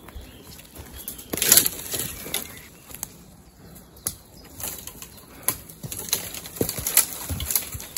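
Irregular scuffing steps and rustling moving over a steep, rough trail, with a few sharp clicks and knocks.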